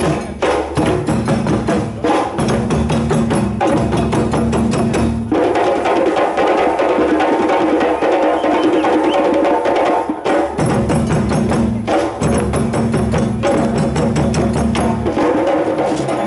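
A West African hand-drum ensemble of djembes and bass drums playing a fast, dense rhythm. The low bass-drum tones drop out for about five seconds midway, then come back in.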